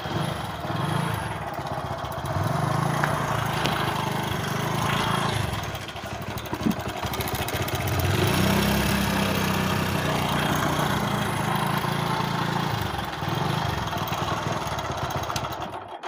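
Hero HF Deluxe's 97cc single-cylinder four-stroke engine running just after start-up, with a very irritating timing (cam) chain rattle. The chain has stretched and is slack even with a stiffer tensioner spring fitted. The engine dips briefly about six seconds in.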